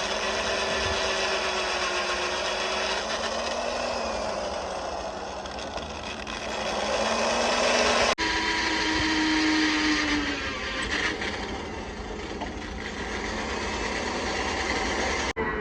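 A power tool's motor running, its whine shifting slowly in pitch over a dense noise of metalwork. The sound breaks off abruptly about eight seconds in and again near the end.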